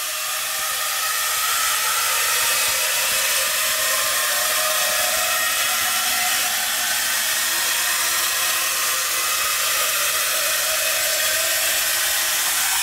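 Two-post hydraulic car lift lowering a car: a steady hiss of fluid bleeding back through the lowering valve, with a faint wavering whine in it.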